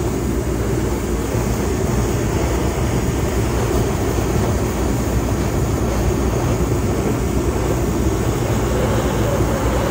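A 135,000 BTU diesel torpedo heater and a handheld propane torch burning together, a steady, deep rushing noise with no breaks, as a cast-iron Dana 60 axle housing is preheated for welding.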